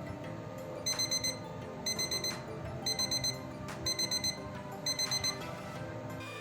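An electronic alarm beeping in quick groups of four high beeps, about one group a second, over a low steady hum.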